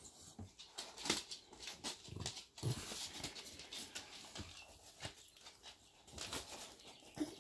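Dogs close to the microphone while being stroked by hand. The sound is a series of short scratchy rustles of hand and fur.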